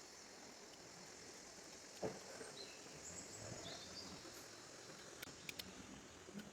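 Quiet outdoor background hiss with faint high chirps, a single knock about two seconds in and a few sharp clicks near the end.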